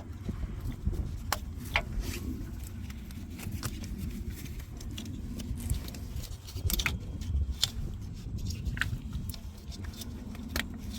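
Irregular sharp clicks and small plastic handling knocks as ignition HT leads are pushed and clipped onto the spark plugs of a 1242cc petrol engine, over a low steady background rumble.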